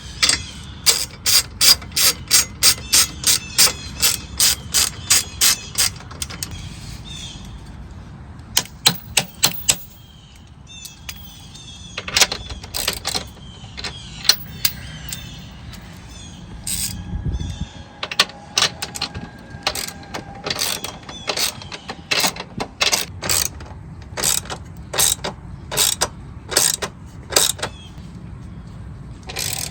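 Hand ratchet wrench clicking while running-board bracket bolts are turned. The clicks come in runs of quick, even strokes, about three a second, broken by pauses.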